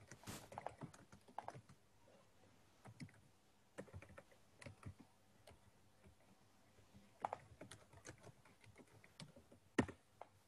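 Faint, irregular keystrokes and clicks on a computer keyboard, with a couple of sharper clicks in the second half.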